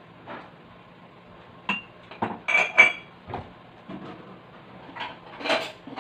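Kitchen utensils and dishes clattering during food preparation: a string of short knocks and clinks, the loudest a pair of ringing clinks about two and a half to three seconds in.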